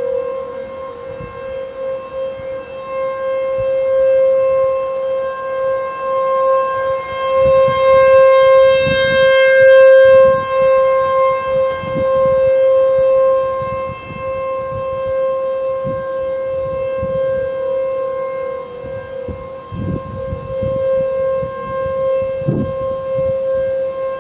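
Outdoor civil defense siren sounding a steady, unwavering tone. It swells louder toward the middle and then eases back.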